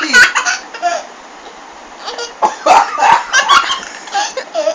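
A baby laughing in bursts at a man's mock coughing: a short bout at the start, then a longer one from about two and a half seconds in, with a lull between.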